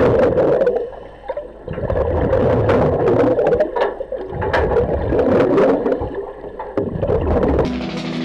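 Underwater bubbling from divers' regulators breathing surface-supplied air, heard through a camera housing: exhaled bubbles come in bursts about every two seconds, with scattered sharp clicks. Music fades in at the very end.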